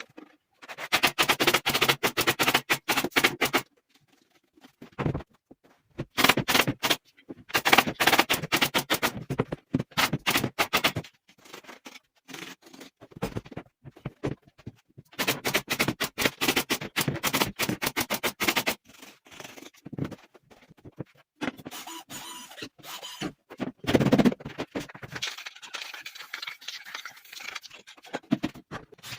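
Rapid scraping in bouts of a few seconds each, with pauses between, from furniture repair work.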